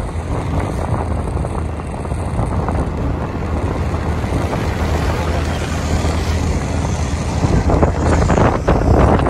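A vehicle's steady running rumble with wind on the microphone, getting somewhat louder near the end.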